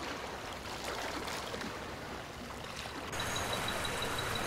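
Flowing river water, a steady rushing hiss. About three seconds in it cuts to a slightly louder hiss with a fast, even high ticking.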